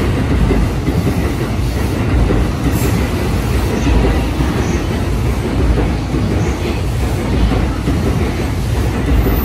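JR East E531 series electric multiple unit running along a station platform: a loud, steady rumble of steel wheels on the rails.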